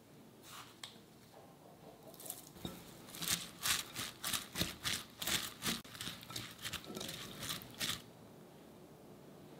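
Hand tossing and squeezing salted, finely shredded raw cabbage in a glass bowl: a run of crisp crunching rustles, about two a second, starting a couple of seconds in and stopping near the end. The cabbage is being worked with salt to draw out its water.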